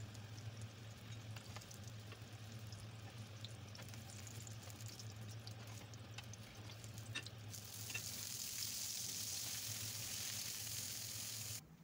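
Eggplant slices frying in hot oil in a frying pan: a steady sizzle that grows louder and hissier about two-thirds of the way through as fresh raw slices are laid into the oil, with a few light clicks from handling the slices. It cuts off suddenly just before the end.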